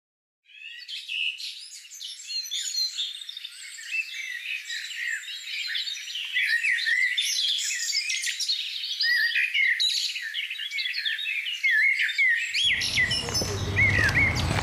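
Several songbirds chirping and singing, many short varied calls overlapping, fading in at the start. Near the end a low steady outdoor rumble joins the birdsong.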